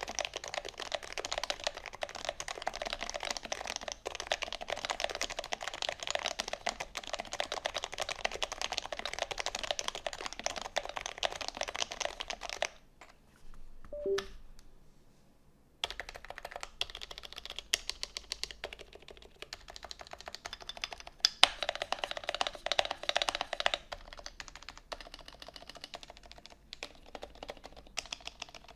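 Typing on a Taycan Type-EV custom keyboard with lubed Topre switches in an aluminium plate: a fast, dense run of keystrokes, a pause of about three seconds near the middle, then typing resumes with some heavier strokes.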